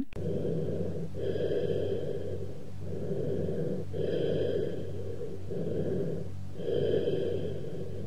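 Cavernous bronchial breath sounds heard over the chest: low-pitched and hollow, about three breaths, with a brief pause between inspiration and expiration and expiration as long as or longer than inspiration. The sign of an underlying lung cavity with irregular walls or an open pneumothorax.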